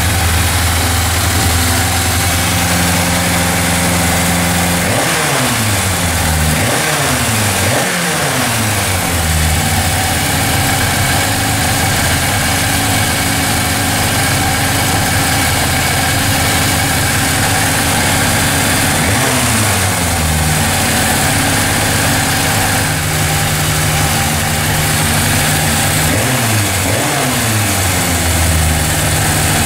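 Four-cylinder motorcycle engine idling with a vacuum gauge set connected for carburettor synchronisation. The throttle is blipped a few times about five seconds in, once around twenty seconds in, and twice a few seconds before the end, each time the revs rising and falling back to idle.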